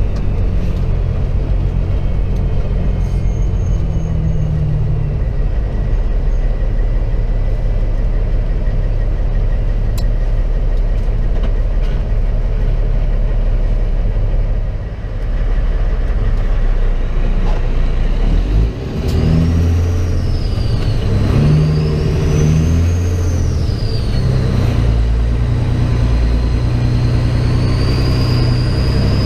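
Semi truck's diesel engine running under load, heard from inside the cab as the truck drives slowly through town. The level dips briefly twice midway, and in the second half a high whine rises and falls with the engine.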